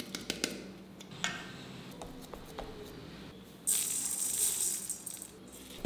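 White sesame seeds sprinkled by hand into a stainless steel bowl of dough: a loud, dense hiss of falling seeds lasting about a second and a half, starting a little past halfway. Before it come light clicks and taps of fingers working in the bowl.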